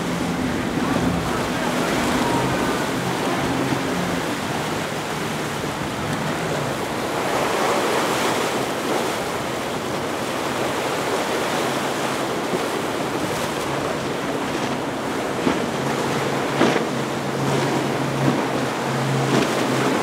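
Outboard engines of center-console boats running at speed through rough water, heard as a steady hum over wind and surf noise. The engine hum fades out in the middle and returns about fifteen seconds in, and a few sharp knocks come near the end.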